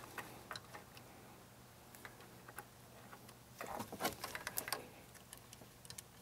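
Faint scattered clicks and light metallic ticks of a small Allen wrench working the screws on the shock's damping-adjust motor, with a quick flurry of louder clicks about four seconds in.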